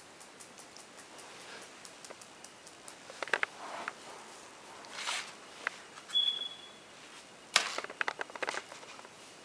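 A small pink basket knocking, scraping and clattering on a tile floor as a Yorkie-Maltese puppy chews and pushes it, in scattered clicks and short scrapes. There is a brief high squeak just after six seconds in, and the loudest knock comes at about seven and a half seconds, followed by a quick rattle.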